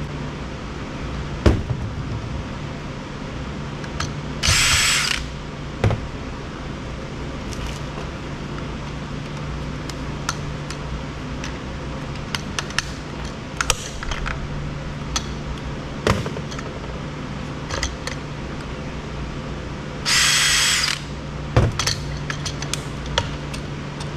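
Cordless power screwdriver whirring in two short bursts, about four seconds in and again about twenty seconds in, backing out screws from a Roomba robot vacuum's plastic housing. Scattered clicks and taps of plastic parts and tools between the bursts.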